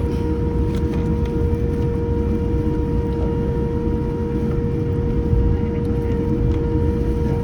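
Boeing 787-10 cabin noise heard from a window seat: a steady low rumble with a constant mid-pitched hum over it.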